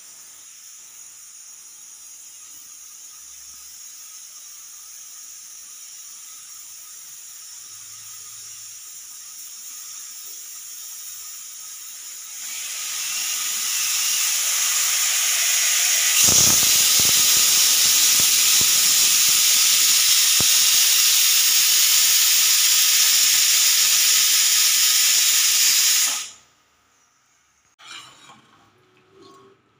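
Aluminium pressure cooker venting steam: a steady high hiss from the vent weight for about twelve seconds, then swelling over a few seconds into the loud full whistle of escaping steam, the sign that the cooker has reached pressure. The whistle cuts off abruptly near the end, followed by a few light clicks of a spoon against the pot.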